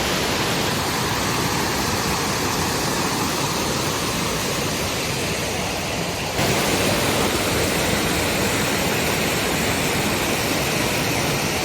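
Waterfall water rushing steadily, an even hiss of falling water. About six seconds in it cuts abruptly to a slightly louder rush.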